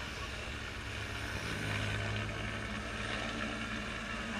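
A motorcycle riding past close by, with a helicopter droning overhead. A low steady hum swells about a second and a half in and holds for about a second.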